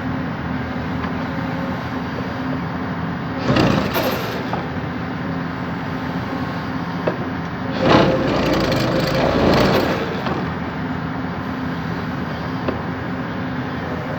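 Excavator's diesel engine running steadily, with two louder rushing stretches, one about four seconds in and a longer one from about eight to ten seconds in.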